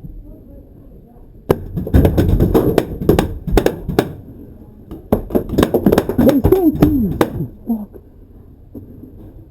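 Paintball markers firing in two rapid bursts of shots, the first about a second and a half in and the second after five seconds. A voice shouts during the second burst.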